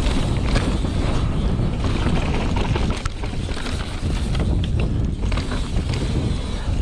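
Mountain bike riding fast down a dirt singletrack. Wind rushes on the camera microphone and the tyres rumble on the dirt, with short rattles and knocks from the bike over bumps.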